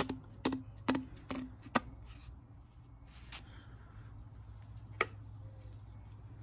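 Sharp clicks and taps of side-step parts being handled and pinched into place by hand: five in the first two seconds or so, then one more about five seconds in.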